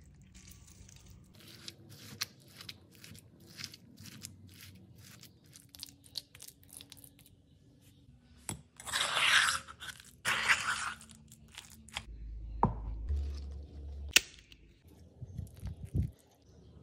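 Guacamole being mixed in a stone molcajete, a run of short wet squishing sounds, then two loud crunches of fried tortilla chips about halfway through, followed by a low thud, a sharp click and a few knocks.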